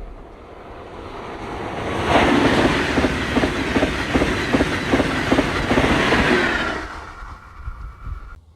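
A train passing close by: it swells as it approaches, and its wheels clack rhythmically over the rail joints, about three clacks a second, for several seconds. Then it fades, and the sound cuts off suddenly near the end.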